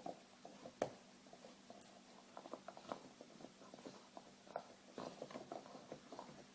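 Faint, quick, irregular small clicks and taps from a dog busy with a bone, with one sharper knock about a second in.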